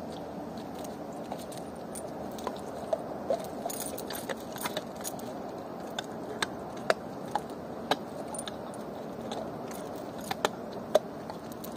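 A chained dog eating bones: its metal tether chain clinks and jangles in irregular sharp clicks as it moves its head, with the crunch of bone between them.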